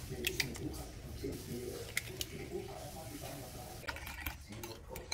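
Raw egg being broken into a ceramic bowl of mashed banana, shell pulled apart with a soft wet squish and a few light taps. Near the end a fork starts beating the mixture, clinking against the bowl.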